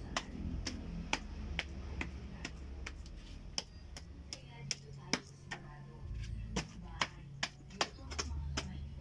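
Hands patting and slapping a mound of clay being shaped into an earthen cooking stove: a run of short, sharp taps about two a second, evenly spaced at first and more uneven in the second half, over a low steady hum.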